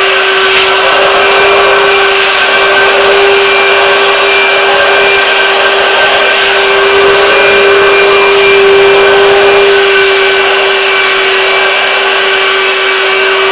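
Hot-water carpet extraction machine's vacuum motor running steadily, with a constant whine over a rush of air as the wand draws water and dirt out of the carpet.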